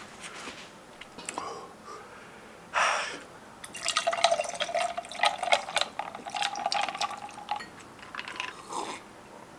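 Close-up wet eating and drinking sounds: many small liquid clicks and drips, with a short noisy burst about three seconds in and a steady watery tone through the middle.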